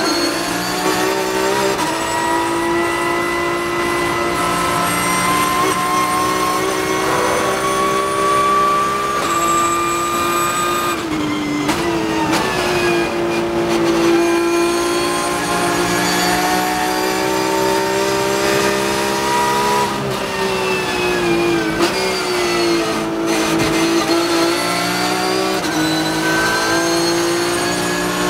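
Porsche 911 GT3 Cup (991.2) race car's flat-six engine heard from inside the cockpit, running hard at high revs in fourth gear. The pitch climbs slowly, dips briefly twice as the throttle eases off, and climbs again.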